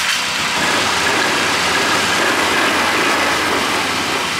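Two ATV engines idling together: a full-size Polaris Trail Boss quad and a small 40cc kids' quad. The small 40cc engine is the louder of the two.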